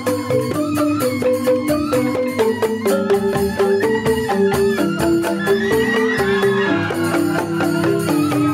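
Balinese joged bumbung gamelan playing: bamboo grantang xylophones struck in fast, dense interlocking patterns, with bamboo suling flutes carrying a held, gliding melody over them.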